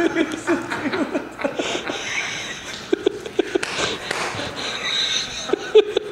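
People chuckling and laughing in short, stifled bursts, with a clearer run of laughs near the end.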